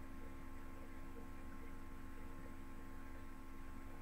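Steady low electrical hum with faint hiss and no other events.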